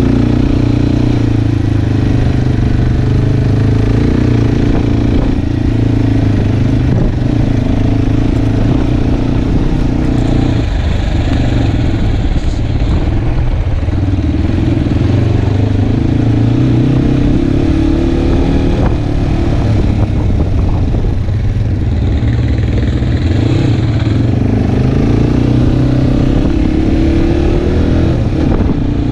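Italika motorcycle engine running under way, heard on board, its note rising and falling a little with the throttle, with a few rattles around a third of the way in.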